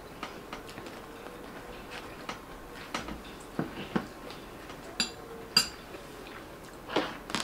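Metal spoon clinking against a small ceramic bowl, with soft chewing and mouth clicks in between; two sharp, ringing clinks come about five seconds in.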